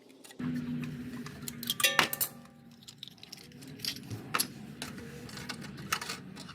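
Light metallic clinks and taps of hand tools and brake parts while working on a car's rear disc brake caliper, irregular, with a louder cluster about two seconds in.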